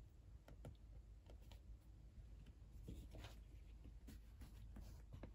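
Near silence: low room hum with a scattering of faint, light clicks and taps, like small handling noises on a table.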